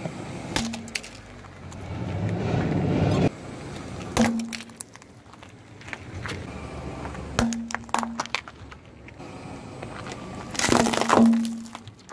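A car tyre rolling over and crushing brittle things: a green plastic object cracks and snaps apart in several sharp breaks, and near the end a heap of shells on a board crunches loudly under the wheel.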